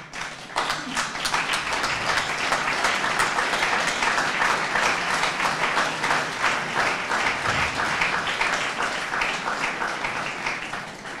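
Audience applauding: dense, steady clapping from many hands that starts about half a second in and dies away near the end.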